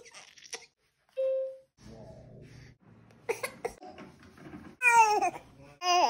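A baby's voice in quick short snatches: a brief cry, short laughs, then a loud squeal falling in pitch and a long coo that rises and falls near the end.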